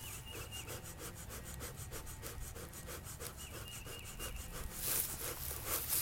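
Bee smoker's bellows pumped in rapid, even puffs, blowing air into the smouldering newspaper and jute to feed the fire oxygen. The puffs grow louder and hissier about five seconds in.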